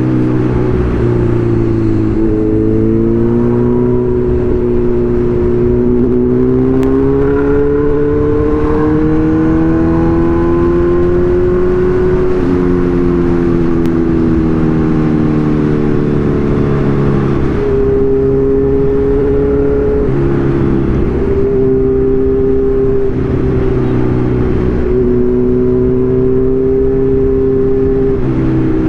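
Kawasaki Z1000 inline-four engine running under way: its note climbs slowly for several seconds, then drops and settles a few times as the rider changes speed or gear.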